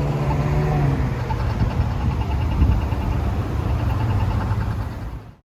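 Low rumble of a motor vehicle engine, its hum sliding down in pitch during the first second.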